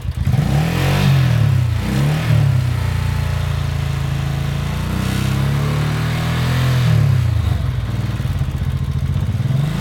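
A 1983 Honda Shadow VT750C's V-twin engine revving up and down several times, held at higher revs for a few seconds in the middle. It is running with the clutch-switch circuit closed, the condition under which the owner found its misfire above about 3,000 rpm goes away.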